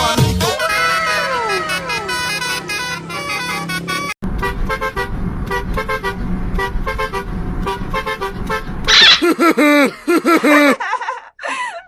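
Multi-tone 'telolet' bus horn tooting a tune of short notes, with falling pitch glides near the start and a quick run of bright, repeated toots about nine seconds in.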